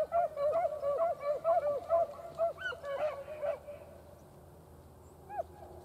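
A pack of beagles baying on a rabbit's trail: quick, overlapping yelping calls that rise and fall in pitch. The calls stop a little past halfway, with one lone call near the end.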